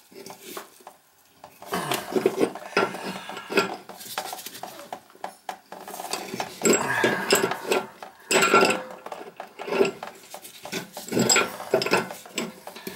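Adjustable wrench clinking and scraping against the metal supply-line nut under a toilet tank as it is worked loose: a run of short, irregular metal clicks and taps that begins about a second and a half in.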